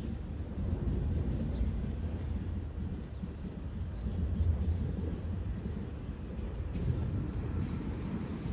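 Train moving, a steady low rumble without distinct clanks or horn.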